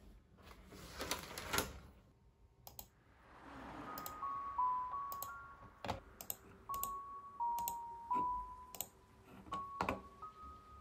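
Computer mouse clicking a dozen or so times at irregular intervals, over soft background music with a simple stepping melody that comes in about four seconds in.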